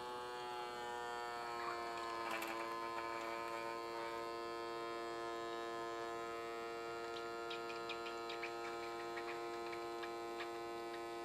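Navage powered nasal irrigator's electric suction pump running with a steady hum, drawing warm saline through one nostril. Its pitch settles slightly lower in the first second or so, and a few faint irregular ticks come in over the second half.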